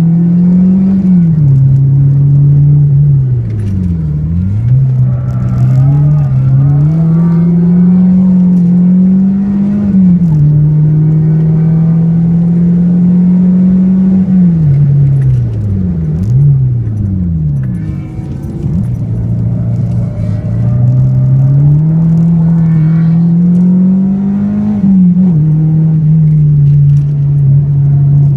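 Renault Clio 2 RS 172's 2.0-litre four-cylinder engine at full throttle on track, heard from inside the cabin: revs climb and drop back at each upshift. About 4 seconds in and again around 16 seconds the revs fall and rise sharply several times in a row as it downshifts under braking.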